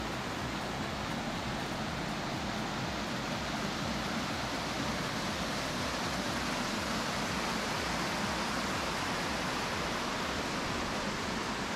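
Water rushing down a small waterfall cascade over rock steps: a steady, even rush.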